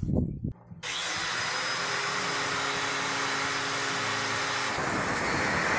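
Angle grinder with a cutting disc, starting about a second in and running steadily with a whine. Near the end the sound changes as the disc starts cutting through steel strip.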